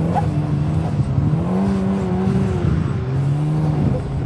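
Turbocharged 1.8-litre Mazda BP four-cylinder engine of an Exocet track car running under way, heard from the open cockpit. Its revs climb near the start, hold, drop about three seconds in, then climb again.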